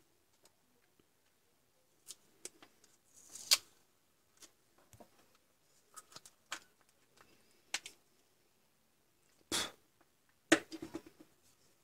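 Scattered clicks and knocks of a Dremel 3000 rotary tool's plastic housing being handled and pried open with a screwdriver, with a few louder clatters, about a third of the way in and again near the end.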